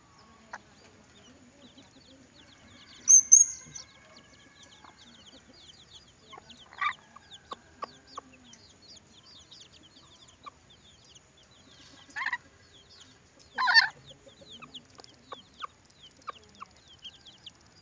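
Ornate lorikeet giving a few short, shrill screeches and squawks, one high piercing note a few seconds in and two louder calls close together later, over faint quick chirping of other birds.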